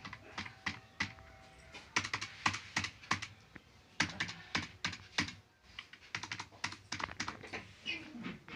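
Typing on an HP computer keyboard: quick, irregular key clicks, with a brief pause about halfway through.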